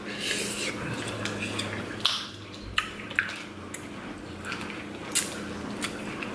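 Close-miked eating of sauce-covered snow crab legs: wet sucking and slurping at the shells, with a few sharp clicks as shells are snapped and cracked, the clearest about two, three and five seconds in.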